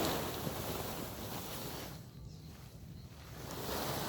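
A large sack piled with pulled weeds being dragged over the ground: a rustling scrape that fades over the first two seconds and swells again near the end.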